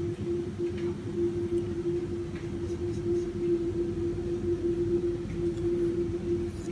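Steady mechanical hum with one constant low tone and a rumble beneath it, with a few faint light clicks.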